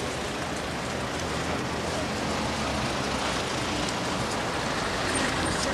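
Steady outdoor street noise, an even hiss with a low hum underneath.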